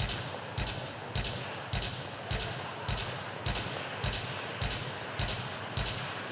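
A steady practice beat for the foxtrot, a low thump with a sharp click on each stroke, a little under two strokes a second, each ringing briefly in the rink hall over a wash of rink noise.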